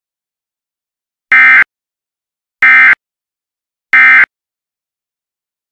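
Emergency Alert System end-of-message signal: three short, loud bursts of SAME digital data tones, about a second and a half apart, marking the end of the alert.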